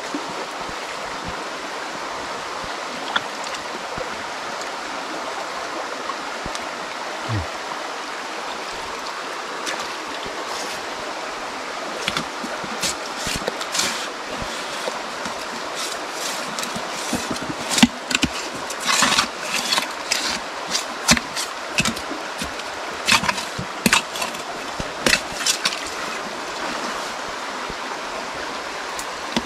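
Creek water running steadily over rocks, with a scattering of short sharp sounds from about twelve seconds in until near the end.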